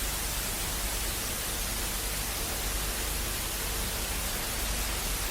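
A steady, even hiss of noise, like static.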